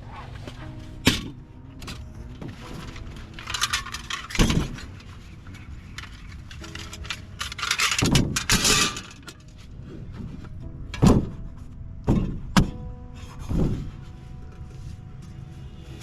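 Camping gear being handled: several sharp knocks and clacks, with two bursts of crisp rustling, over soft background music.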